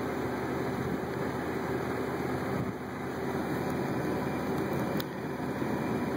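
Wind blowing across a phone's microphone as a steady, rumbling rush.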